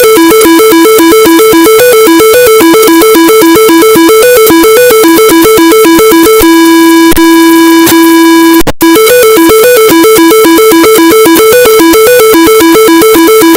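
Loud electronic emergency-alert alarm signalling a tornado: two buzzy synthesized tones alternating rapidly. About halfway through, a single steady tone holds for about two seconds, cuts out for an instant, and the rapid alternating resumes.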